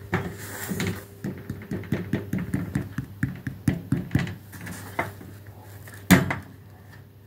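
A loaf of bread being squeezed and turned in the hand: a quick run of soft crackles and taps from the crust and fingers, then a single louder thump about six seconds in.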